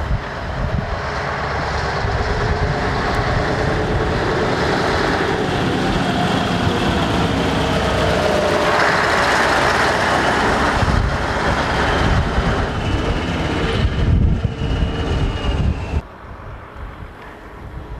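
Scania 141 lorry's V8 diesel engine running as the truck drives up and past close by, loudest about nine to eleven seconds in. Near the end it gives way suddenly to a fainter, distant engine and wind.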